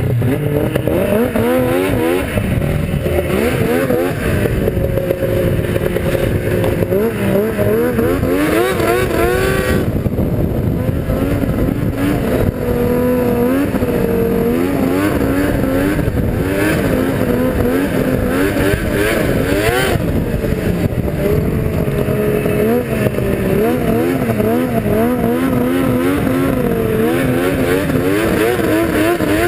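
Yamaha V-Max 700 SX snowmobile's two-stroke engine revving up and down as the sled rides across snow and climbs slopes. Its pitch rises and falls repeatedly with the throttle, heard close from on board the sled.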